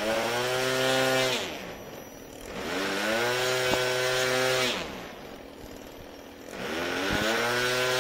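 Electric motor and propeller of a VQ Model Bonanza RC plane in flight, throttled up and back three times: each burst rises in pitch, holds a steady whine, then falls away.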